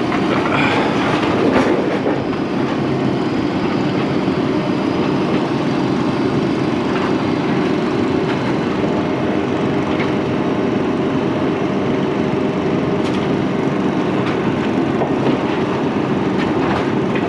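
A large engine or heavy machine running steadily with a loud rumble, with a few faint metallic clanks.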